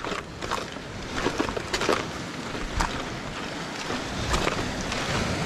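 Wind on the microphone and sea surf washing in a rocky gully, with a few sharp footsteps on rock as the walker moves across the shore.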